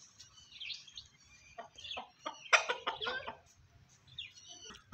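Chicken clucking: a quick run of loud, squawking clucks about two and a half seconds in, with short high chirps before and after it.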